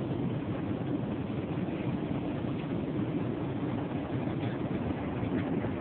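Steady low drone of an airliner cabin, the even noise of the aircraft's engines and air heard from a passenger seat.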